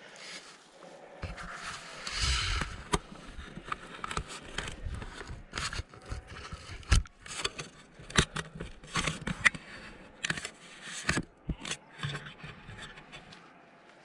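Climber's hands and feet scraping and knocking on rough rock while moving up a slab, with irregular sharp clicks and a stretch of rubbing about two seconds in.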